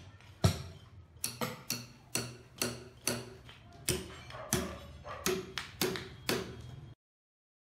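A series of sharp knocks with a brief ringing after each, irregular at roughly one to two a second, cutting off abruptly about seven seconds in.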